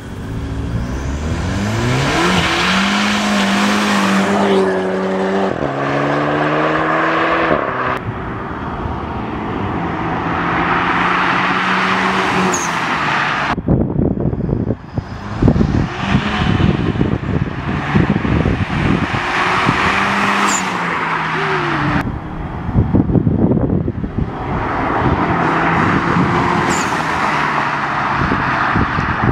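Audi A3 1.4 TFSI turbocharged four-cylinder with a full 2.5-inch Magnaflow exhaust, accelerating hard. The revs rise and drop back through gear changes, and the throttle cuts off sharply. Between pulls the exhaust runs rough and crackly at lower revs, then the car pulls hard again near the end.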